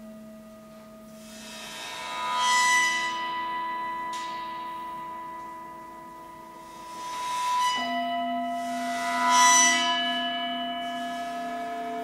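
Gongs and singing bowls ringing: long steady bowl tones sound under two slow swells of bright gong shimmer that rise and fade, and a new bowl is struck about two-thirds of the way through, its lower tones joining in.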